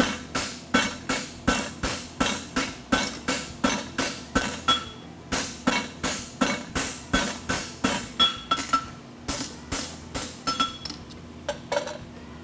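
Two men hammering a red-hot steel draft horseshoe on an anvil, a steady run of ringing blows about three a second, flattening the shoe. The blows pause briefly about five seconds in, then thin out and stop near the end.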